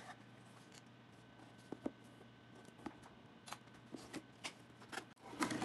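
A cardboard shipping box being handled, turned over and set down on a countertop: a few light, scattered taps and knocks, with a louder rustling scrape starting near the end.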